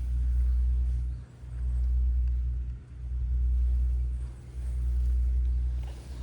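Domestic cat purring: a low rumble in even cycles, about one every second and a half, with a short break between each breath in and out.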